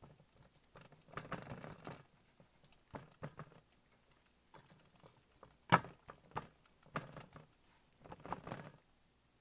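Hands patting and rubbing seasoning into a raw steak on a wooden cutting board: soft, irregular pats and squelching rubs in short clusters, with one sharper knock just past halfway.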